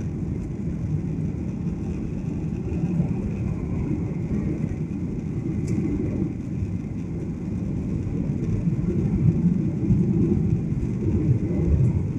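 Steady low rumble of a Ryanair Boeing 737's jet engines and airflow, heard inside the passenger cabin as the airliner climbs after take-off.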